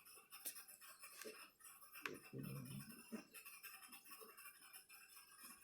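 Faint scratching and small clicks of a small screwdriver working the little black screws out of a Dell Precision M3800 laptop's bottom cover.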